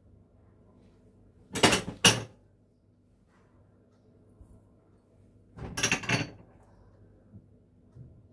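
Two short bursts of kitchen clatter about four seconds apart, each a few sharp knocks, as things are handled or set down during cooking.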